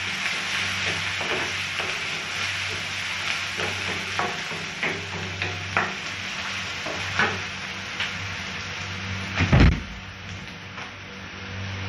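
Crushed ginger, garlic and chillies frying in hot coconut oil in a metal wok: a steady sizzle with scattered crackles over a low hum. A single heavy knock comes late on, as a wooden spatula stirs the pan.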